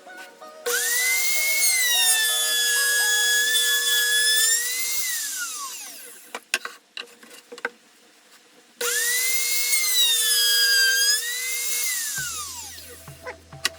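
A power tool's electric motor run twice for about four seconds each: a high whine that starts suddenly at full speed, holds, and then falls in pitch as the motor spins down once released.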